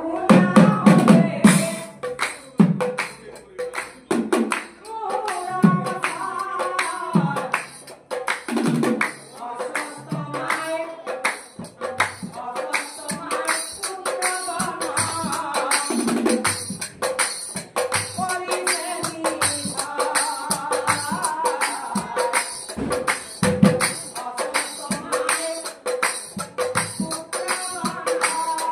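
Nagara naam, Assamese devotional group singing: men's voices sing verses over a fast, steady beat of metallic jingles and clashes, with heavy nagara drum strokes, strongest at the start.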